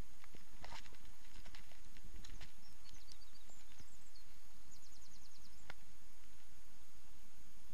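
A few sharp clicks from a spinning reel and rod being handled through a cast, over a steady low rush. Then short high chirps from a small bird, ending in a quick trill of about eight notes a little after the middle.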